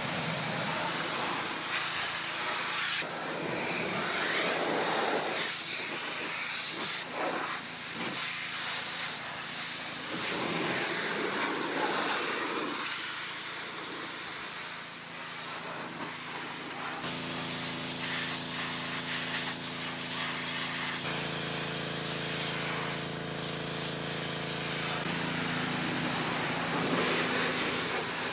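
A pressure washer's water jet hissing steadily as it blasts the rusty sheet-metal body of a 1965 VW Beetle. The spray sound shifts abruptly several times, and a steady hum joins in about two-thirds of the way through.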